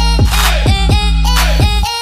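Electronic pop background music with a steady beat of deep bass drops, about two a second.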